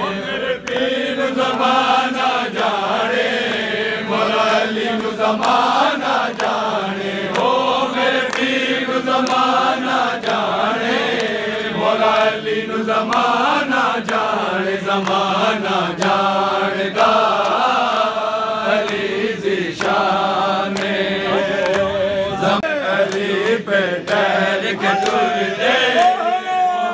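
A group of men chanting a devotional chant in praise of Imam Ali (Mola Ali) together, their voices going on without a break.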